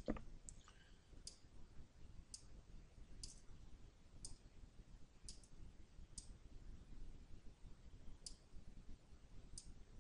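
Faint computer mouse clicks, about ten spaced irregularly roughly a second apart, with a pause of about two seconds past the middle.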